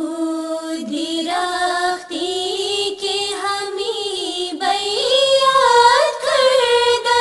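A Farsi ginan, an Ismaili devotional hymn, sung in ornamented melodic phrases that turn up and down in pitch, settling into a long held note near the end.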